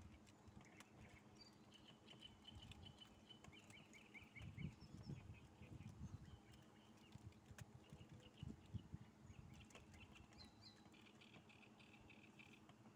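Faint birdsong, bursts of short repeated chirps and trills, over a low steady hum from the boat's motor while trolling. A few soft low thumps come around the middle.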